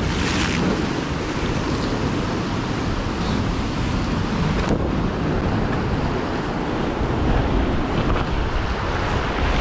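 Sea surf surging and foaming through a narrow rocky gully, with strong wind buffeting the microphone as a steady low rumble.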